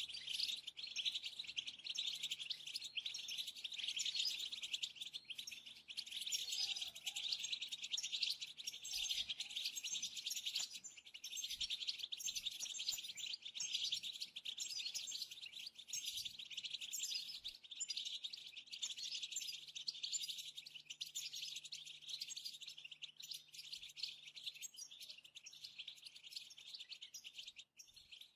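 European goldfinches twittering: a continuous stream of rapid, high chirps and trills.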